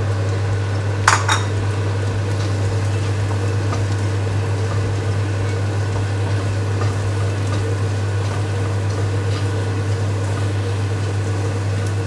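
Diced carrots tipped from a bowl into a frying pan of onion and garlic, with two sharp knocks about a second in, then a spatula stirring and scraping the frying vegetables in a nonstick pan as they sizzle lightly. A steady low hum runs underneath.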